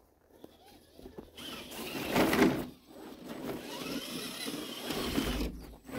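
Axial SCX10 II radio-controlled crawler's electric motor and gears whirring as it drives through snow. It starts about a second and a half in and is loudest a little after two seconds.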